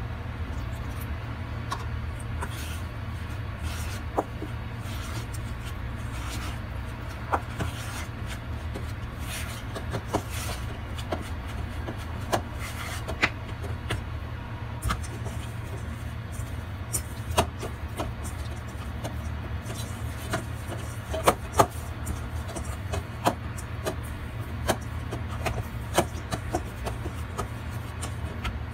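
Metal spoon clinking and scraping against a stainless steel bowl as flour and water are stirred into dough, then hands kneading the dough in the bowl, with scattered sharp clicks throughout over a steady low hum.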